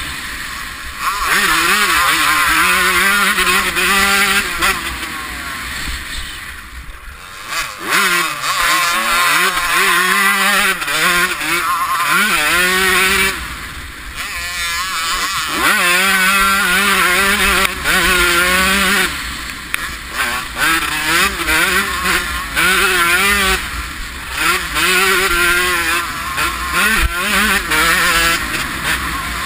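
1993 Honda CR125 two-stroke motocross engine revving hard and backing off again and again as it is ridden around the track, with the throttle closing for corners several times. Heavy wind and engine noise fill the higher range.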